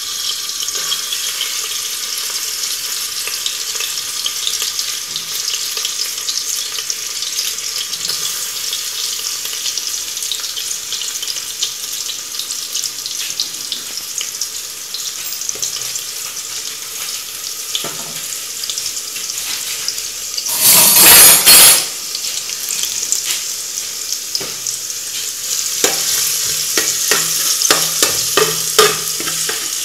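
Chopped garlic sizzling steadily in hot oil in a steel pot. About 21 s in there is a loud rush lasting about a second. Near the end a metal spoon clicks and scrapes against the pot as the garlic is stirred.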